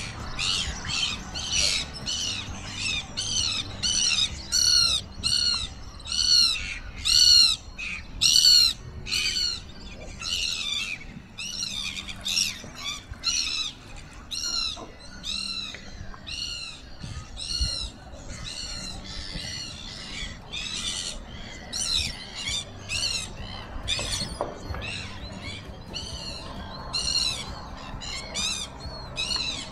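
Gulls calling in a long, rapid series of short, sharp calls, about two a second, each call rising then falling in pitch; the calls are loudest in the first nine seconds or so and grow sparser after that.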